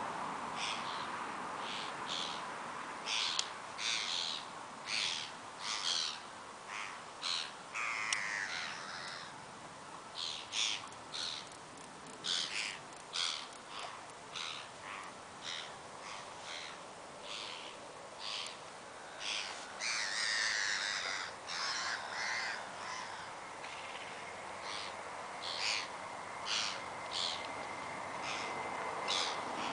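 Birds calling: a string of short, sharp calls repeated about two a second with brief pauses, and twice a longer run of falling notes, about eight and twenty seconds in.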